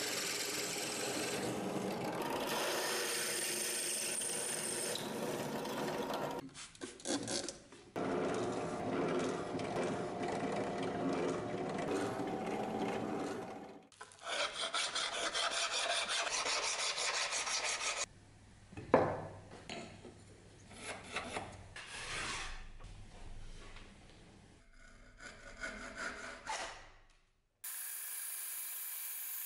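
A bench drill press boring pin holes through a cleaver's steel tang. After edits come strokes of a hand file on the steel, and near the end a band saw running.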